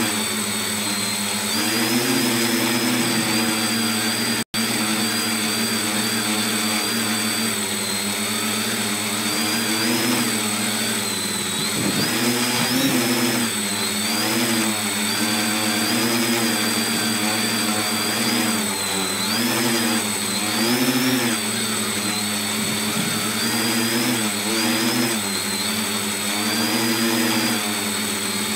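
Tricopter's three electric motors and propellers whirring, heard up close from a phone mounted on the frame. Their pitch keeps rising and falling as the throttle changes in flight. The sound cuts out for an instant about four and a half seconds in.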